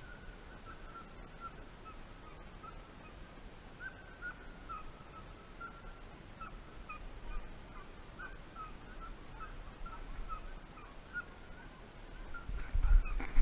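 Hunting dogs baying far off on a wild boar drive: faint short yelps repeated at an uneven pace of two or three a second. A couple of louder low thumps near the end.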